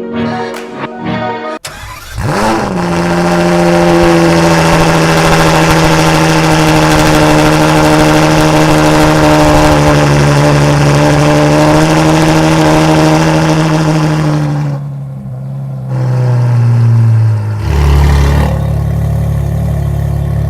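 Ferrari 812 GTS's V12 engine started, flaring up and settling into a steady fast idle. Around 15 seconds in, the idle drops lower and the engine sound becomes deeper and heavier.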